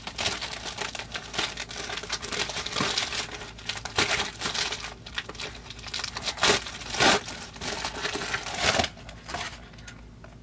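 Crinkling and rustling of mail packaging as a padded mailer is opened and a small cardboard box is taken out, with several sharper crackles along the way; it dies down near the end.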